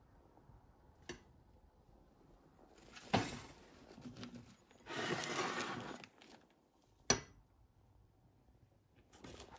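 A few sharp clinks and knocks of objects being handled, at about one, three and seven seconds in, with a rustle lasting about a second around five seconds in.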